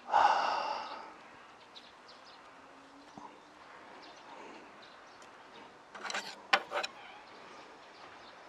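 Quiet eating sounds: steamed flower buns pulled apart by hand, then a few sharp clicks of chopsticks against the dish about six seconds in. It opens with a short buzzing hum that fades within a second.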